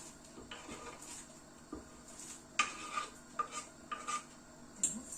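A metal utensil clinking and scraping against a cooking pot, as when stirring soup: soft rubbing at first, then about five sharp clinks with a short ring in the second half.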